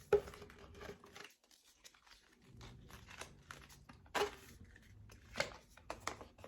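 Paper and cardboard packaging of a watch band box being torn and crinkled open: a run of short crackles and rips, pausing briefly after about a second, with louder tears near the start and at about four and five and a half seconds in.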